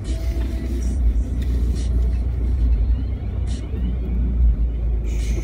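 Low, steady rumble of a Nissan Patrol Y61's 3.0 diesel engine and drivetrain heard from inside its cabin as it drives slowly over rough grassland, with a few light rattles.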